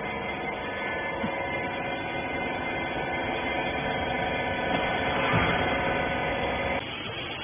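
Clothes wiper baler machine's motor running with a steady hum, cutting off abruptly near the end.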